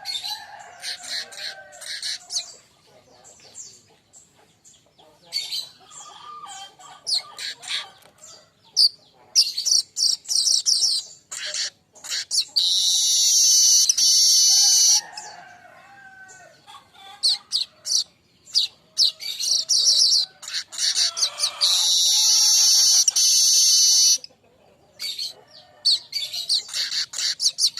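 Manyar kembang weaver singing: short, high, scratchy chattering phrases broken by brief pauses, with two long rapid high trills of about three seconds each, a little before the middle and again about three-quarters of the way through.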